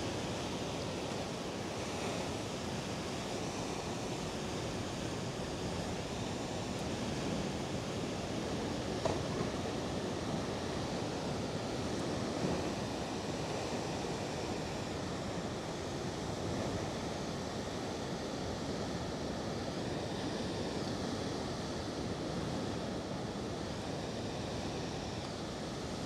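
Heavy ocean surf breaking on rocks: a steady wash of waves with wind on the microphone, with a couple of slightly louder surges about nine and twelve seconds in.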